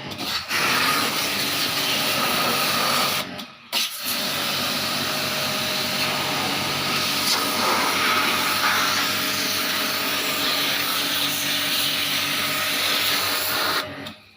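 Motor-driven pressure washer spraying water at an air conditioner during cleaning: a steady hissing rush over a motor hum, run in two long bursts with a short break after about three seconds, then cut off near the end.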